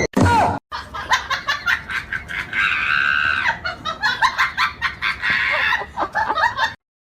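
A person laughing hard in quick repeated pulses.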